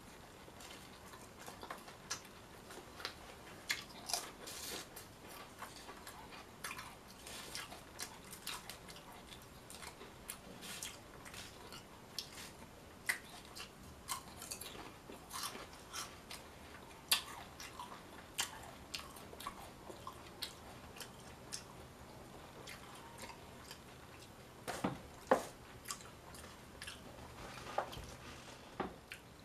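A person chewing a mouthful of Italian sub sandwich with dill pickle potato chips in it: irregular crunches and mouth clicks throughout, with a few louder crunches near the end.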